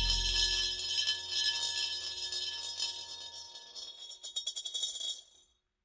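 Swiss coin spun around the inside of a glazed earthenware Talerbecken bowl (Talerschwingen): a steady ringing whir of several tones. Near the end it turns into a quickening rattle as the coin settles, then stops abruptly.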